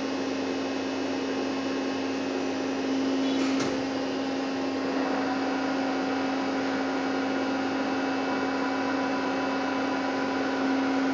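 Pinacho Rhino 325 CNC lathe running with a steady mechanical hum as its tailstock quill drives out. There is a short click about three and a half seconds in, and higher steady tones join at about five seconds.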